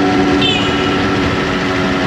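Yamaha RX-King's 135 cc two-stroke single-cylinder engine running at a steady speed, its exhaust tuned for the 'ngorok' snoring note. A brief high chirp about half a second in.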